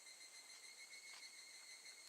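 Faint, steady, high-pitched drone of higurashi (evening cicadas) calling.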